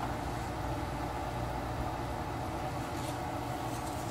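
Steady low hum and hiss of a kitchen, with a faint scrape about three seconds in from a wooden spoon stirring dry granulated sugar in an aluminium pot, the sugar heating for caramel and not yet melted.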